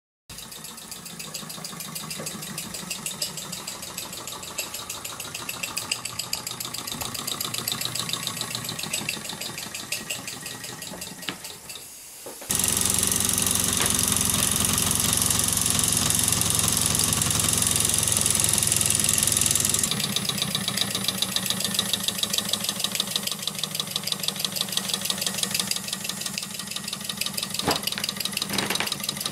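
Mamod SR1A model steam roller's small steam engine running fast and unloaded with its drive belt off, in a quick even chuffing of exhaust steam with a hiss. It is blowing off the remaining pressure in the boiler. About twelve seconds in it turns abruptly louder and hissier.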